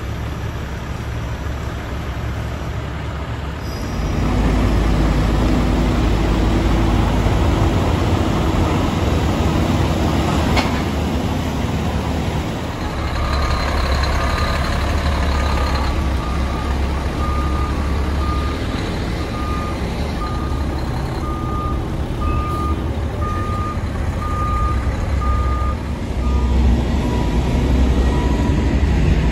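Heavy diesel trucks and construction equipment running, with a deep engine rumble that grows louder about four seconds in. Through the middle stretch a backup alarm beeps about one and a half times a second.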